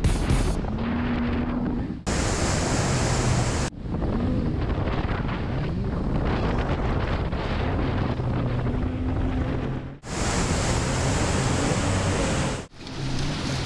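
Water-jet boat's outboard motor running, its pitch rising and falling, over the rush of fast river water and wind buffeting the microphone. The sound cuts abruptly to a new shot four times.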